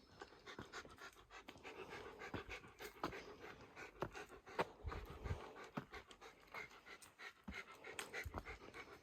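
A person panting hard, breath after breath, from the exertion of climbing a steep trail, with footsteps on pavement.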